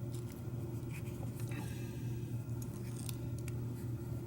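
Small metal clicks and scrapes of a Schlage lock cylinder's plug being worked back into its housing after rekeying, over a steady low hum.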